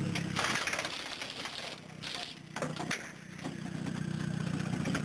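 Pneumatic impact wrenches rattling in several bursts, with a steady whine between, as the wheel nuts are undone and run back up during a quick tyre change on a rally car.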